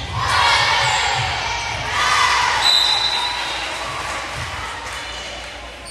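Spectators cheering and shouting, rising sharply at the start and again about two seconds later, then fading away over the last few seconds.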